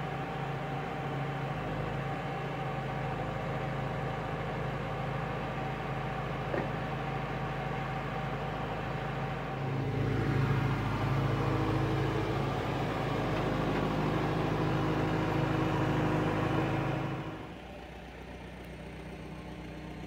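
JCB 3CX backhoe loader's turbo diesel engine running steadily, growing louder about halfway through, then dropping suddenly to a quieter running level near the end.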